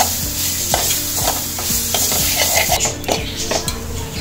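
A metal spoon scraping and stirring grated coconut mixed with country sugar and jaggery in a steel pan, in quick repeated strokes.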